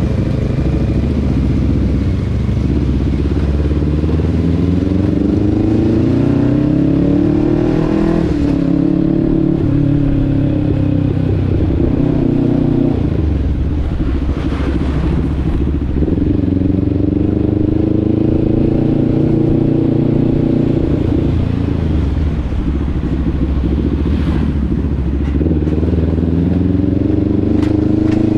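Motorcycle engine running under way, its pitch rising in about four long pulls and dropping back between them.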